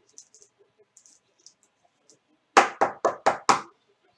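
Faint light ticks of cards being handled, then about two and a half seconds in, five quick loud knocks on a wooden desk, about four a second.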